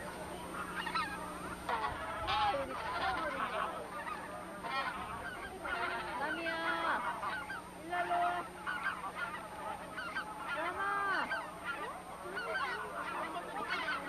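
A large flock of wild geese honking: many short, arched calls overlapping continuously.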